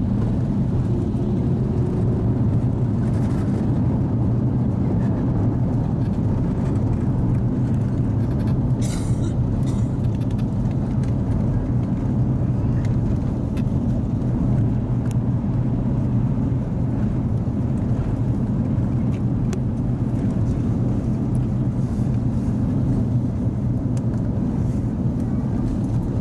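Cabin noise inside a Rolls-Royce Trent XWB-powered Airbus A350 rolling along the runway after touchdown: a steady low rumble from the engines and the wheels on the runway. A brief hiss about nine seconds in.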